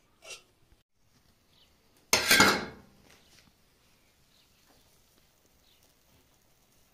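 A short creak as a plastic bottle cap is twisted shut. Then, about two seconds in, a sudden loud clatter of metal dishes that dies away within a second.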